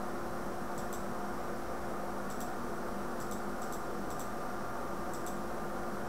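Computer mouse clicking about six times, faint and irregular, roughly one click a second, over a steady hiss and low hum of the recording.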